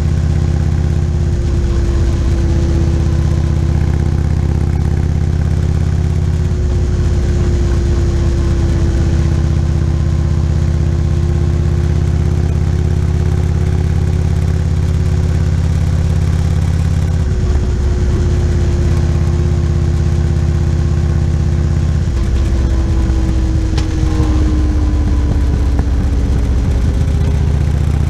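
Motorcycle engine running at a steady cruise on the open road, its note easing slightly lower near the end.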